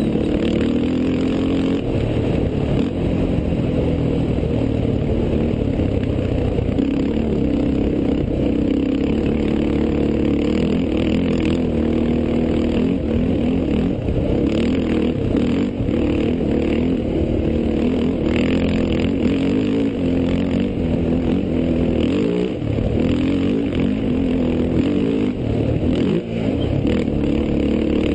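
Off-road race vehicle's engine running hard, heard on board, its revs rising and falling as it accelerates and lifts over rough desert ground, with knocks and rattles from the vehicle.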